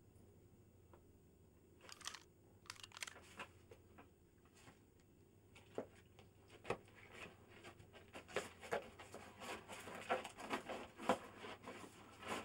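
Quiet, irregular rustling and soft crackles of people moving in furry costumes, with shuffling steps, growing busier toward the end.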